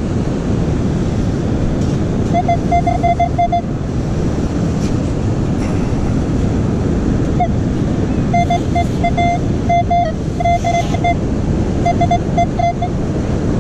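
Metal detector giving short beeps, all at one pitch, in several quick runs of four or five, signalling a metal target: a coin in the sand. Steady surf noise runs underneath.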